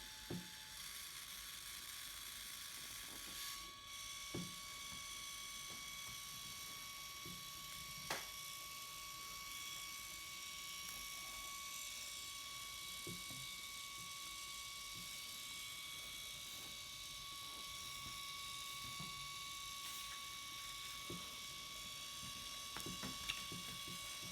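Canon Ivy mini photo printer running, its small motor giving a faint steady whine that steps up in pitch about four seconds in, with a few light clicks, as it feeds paper through to get the first sheet out before the photo prints.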